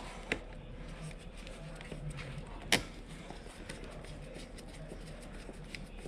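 Small clicks and handling noises of a battery cable being fitted and fastened to an ATV battery terminal, with one sharp click a little under three seconds in.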